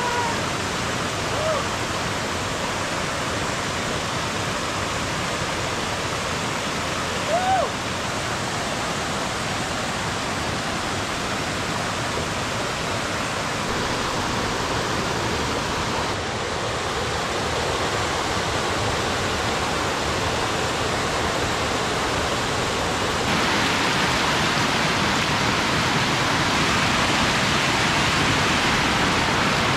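Waterfall rushing steadily, the level stepping up a little about three quarters of the way through.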